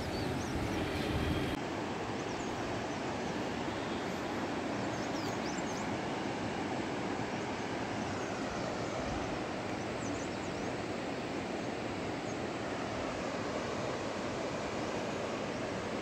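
Rushing water making a steady, even noise, with a slight change in tone about a second and a half in.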